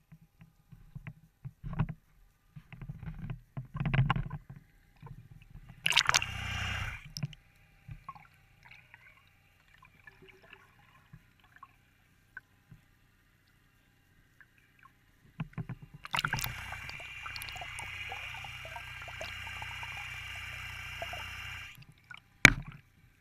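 Water sloshing and splashing against a boat's stern, with scattered knocks and bumps, and a steady rushing stretch of about six seconds in the second half; a sharp knock comes just before the end.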